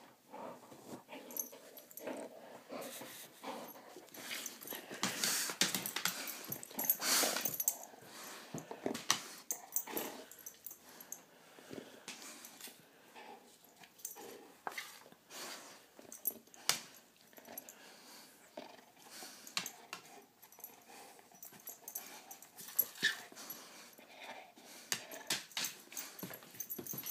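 A dog close by, making irregular short breathy sounds with scrapes and clicks, loudest around five to eight seconds in.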